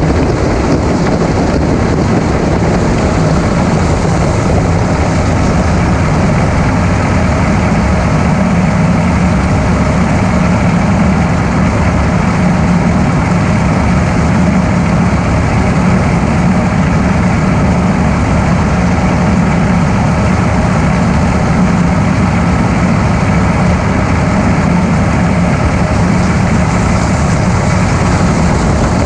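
Heavy diesel farm machinery running steadily at a constant engine speed, a loud even hum with a wide mechanical rush over it.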